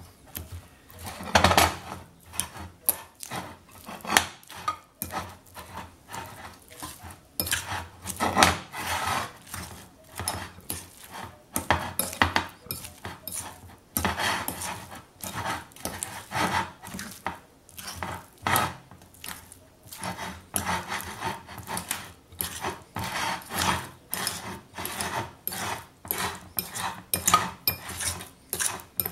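Softened butter and chopped herbs being mashed together in a glass bowl, first with a fork and then by hand. Irregular clinks, scrapes and knocks of the fork and bowl come a few times a second, with a louder knock about a second and a half in and again near eight seconds.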